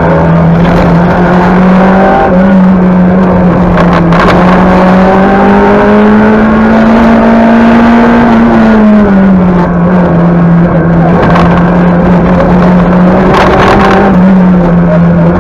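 Talbot Samba Group B rally car's four-cylinder engine running hard at high revs, heard from inside the cabin. Its pitch steps up with a gear change about two seconds in, climbs slowly, drops about nine seconds in, and rises again near the end. A couple of sharp knocks come through the body, one about four seconds in and one near the end.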